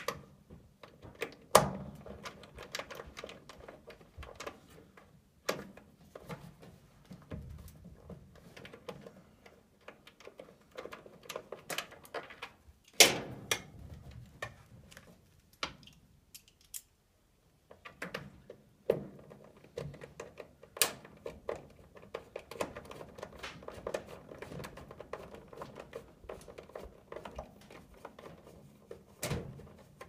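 Irregular clicks, taps and rustles of hands working on furnace wiring and connectors, with a few sharper knocks, the loudest near the middle.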